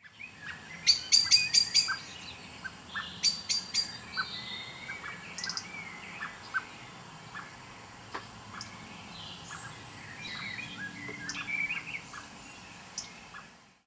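Several wild birds singing and calling, with a short chirp repeated about twice a second and quick runs of high notes in the first few seconds. The birdsong fades out near the end.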